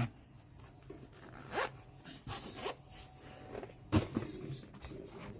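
Zipper on a lock-pick set's case being pulled in a few short rasping strokes, with a sharper knock about four seconds in as the case is handled.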